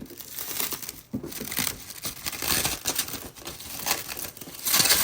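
Plastic packaging crinkling and tearing as it is pulled off a new RC truck by hand: a run of irregular rustles and crackles, loudest near the end.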